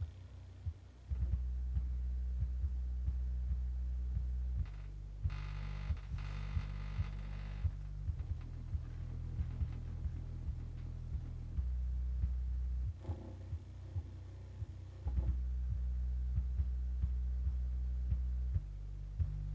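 Bare 1990s car speaker drivers from a 1993 Citroën Xantia playing a bass test: deep low tones that step to a new pitch every few seconds, with a regular thump more than once a second. A short buzz comes in around six seconds in.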